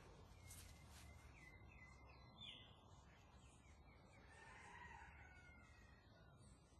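Near silence with faint bird chirps, and a distant rooster crowing about four and a half seconds in.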